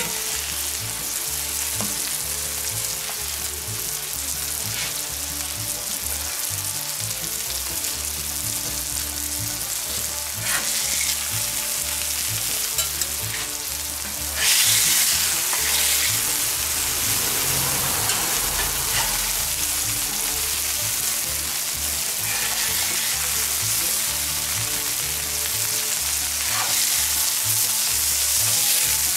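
Burger patties sizzling on a hot steel griddle plate over charcoal as they are smashed flat with a burger press. The sizzle gets louder about halfway through, as another patty is pressed onto the plate.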